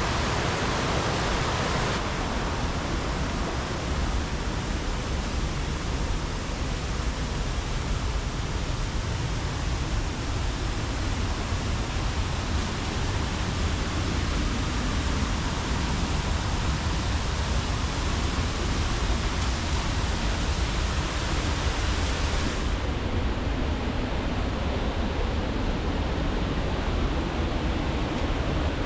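Steady rush of Hickory Run, a fast mountain stream tumbling over rocks. The highest part of the hiss drops away suddenly about three-quarters of the way through.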